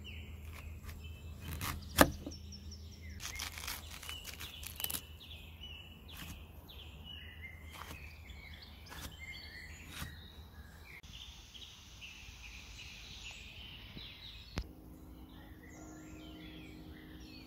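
A knife cutting through watermelon rind and knocking on a wooden tabletop in a series of sharp knocks, the loudest about two seconds in, with a cluster soon after. Songbirds chirp throughout.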